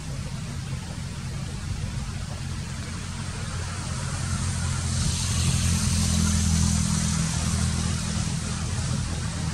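Low rumble of a motor vehicle's engine that swells as it passes about halfway through, with a hiss of road noise rising at the same time.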